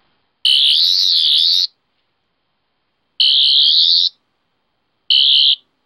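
Sonic screwdriver's electronic sound effect: a loud, high-pitched warbling whine, fired in three bursts, a long one, then a shorter one, then a brief one, with silence between.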